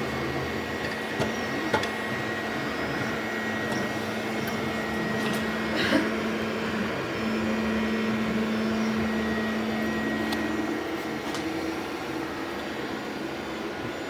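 A 3D printer running, its fans and stepper motors making a steady whir. A humming tone swells for a few seconds around the middle, and a few faint clicks sound.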